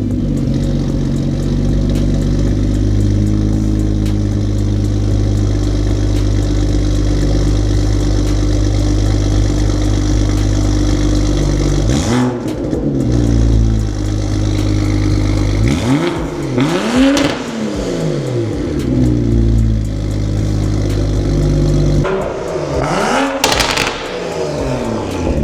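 BMW M235i's turbocharged straight-six idling steadily through a freshly fitted titanium quad-tip cat-back exhaust, then revved in short blips: once about halfway through, twice a few seconds later and again near the end.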